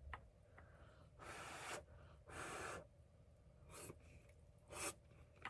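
A person breathing out softly twice, about half a second each, then two shorter, fainter breaths.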